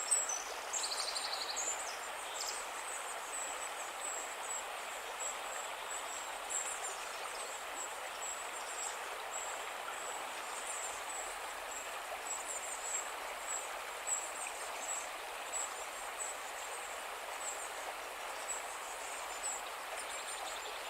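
River water flowing in a steady rush, with a run of short, high-pitched chirps over it that are busiest in the first couple of seconds.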